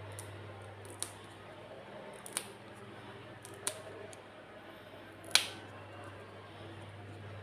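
Four sharp clicks, spaced a second or so apart, the fourth the loudest, from handling during the unboxing of a gold Desert Eagle, over a steady low hum.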